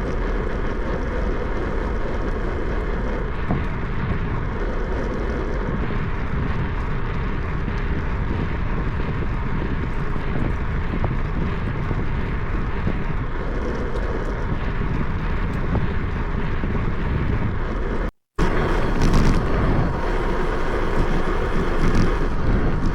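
Steady wind rush and road noise on the camera microphone of a moving bicycle, strongest in the low end. It cuts out for a moment about 18 seconds in, then carries on.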